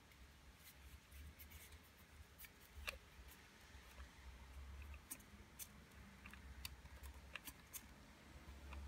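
Near silence with scattered faint clicks and taps from handling a cordless angle grinder's plastic housing; the sharpest click comes about three seconds in. The motor is not running.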